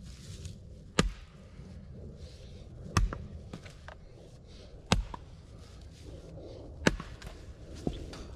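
Axe blows striking wood: four heavy chops about two seconds apart, then a lighter knock near the end.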